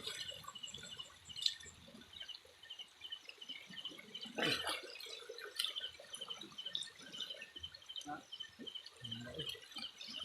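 Water sloshing and dripping close by, with one louder splash about four and a half seconds in, over a high chirping call that repeats evenly several times a second.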